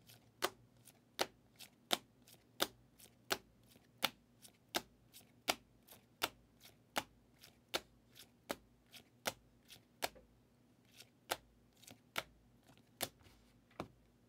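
Hard plastic top loaders holding trading cards clicking against each other as they are handled: sharp clicks about three a second, thinning out after about ten seconds.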